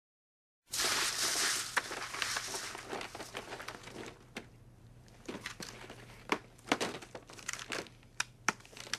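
A paper gift bag and its tissue rustling and crinkling as a boxed item is pulled out. This thins into sharp clicks and crackles of stiff plastic clamshell packaging being flexed and picked at by hand.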